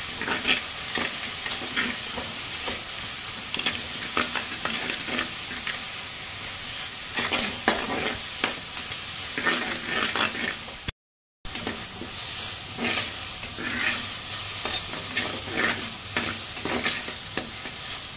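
Shallots, tomatoes and green chillies sizzling in oil in a clay pot while a metal spatula stirs and scrapes them in repeated strokes: the onion-tomato base being sautéed. The sound drops out briefly about eleven seconds in.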